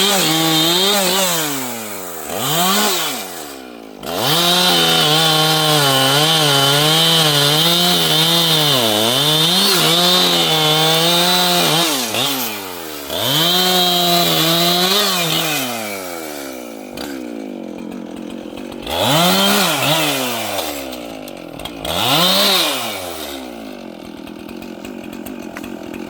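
A large two-stroke chainsaw at high revs, its pitch sagging and recovering as it cuts through wood. Around the middle it drops back to a lower, quieter run, broken by a few short throttle blips.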